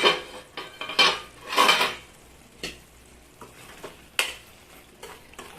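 A metal lid comes off a cooking pan with a clank. Then a metal spoon stirs and scrapes through thick, cooking tomato relish in the pan, with a few sharp knocks against the pan.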